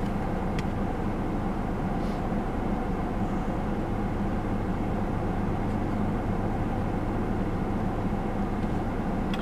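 Steady low hum and even air noise inside a parked car's cabin with the car running.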